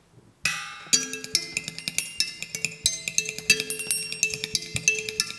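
Live percussive music played with sticks: fast, even tapping, several strokes a second, over held low notes. It starts after a brief hush with a short hissing swish about half a second in.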